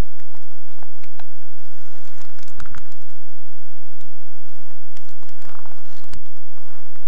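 Footsteps crunching in snow, a few irregular crunches about two and a half, five and a half and six seconds in, over a steady high-pitched hum.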